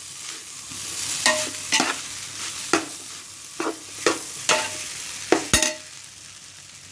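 Chicken fried rice sizzling in a pan over a high flame while it is stirred and tossed. A utensil knocks against the metal pan about nine times with short ringing clanks, and the sizzling dies down near the end.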